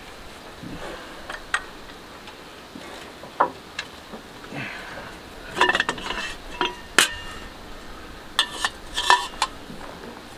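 Irregular metallic clinks and taps of a wrench and steel bars against metal, a few in quick clusters, as an old diesel engine that seizes partway round is turned over by hand.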